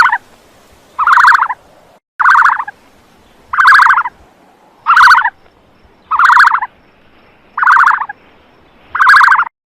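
Ostrich calling: a short, fast rattling call repeated eight times, about one every second and a quarter.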